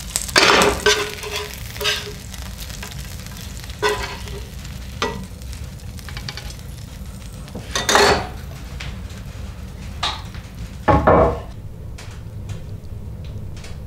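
Pieces of coyote meat sizzling in oil in a nonstick frying pan, with a spatula scraping the pan and knocking against it and a wooden cutting board as the pieces are lifted out, several times with gaps between.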